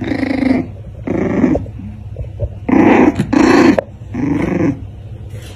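Puppies growling in a play fight: five short growls, the loudest two close together about three seconds in.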